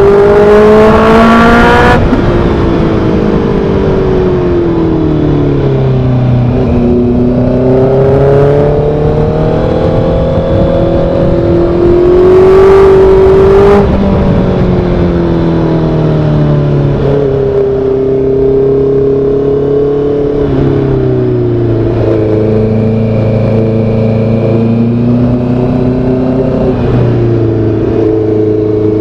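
Honda CB650R's inline-four engine through an aftermarket SC Project-style full exhaust system, under way on the road. The pitch climbs under throttle in the first two seconds and again from about eight to fourteen seconds, the loudest part, and drops back in between and in several smaller rises and falls later on.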